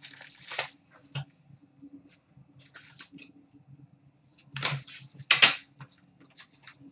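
Rustling and scraping of a trading-card box being opened and the cards slid out, in short irregular bursts, the loudest a little past halfway. A low steady hum runs underneath.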